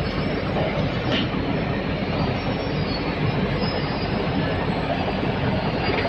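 MACREAT LDBX2116 drum wood chipper running, a steady rumble with a dense rattling clatter.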